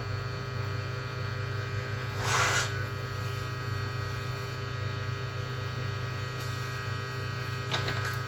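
Steady electrical hum with a number of fixed tones above it. There is a short hiss about two and a half seconds in and another near the end.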